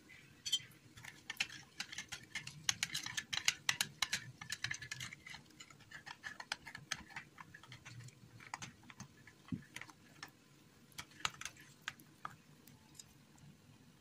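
Quick light clinks of a metal spoon striking the sides of a bowl while stirring: a dense run of clinks for the first few seconds, then scattered ones.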